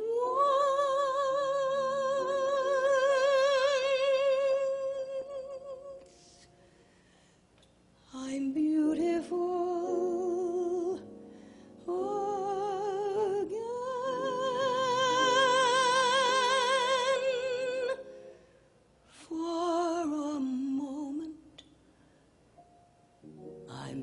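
A woman singing a slow cabaret ballad in long held notes with a wide vibrato. The phrases are separated by short pauses, and the longest note swells and is held for about six seconds in the middle.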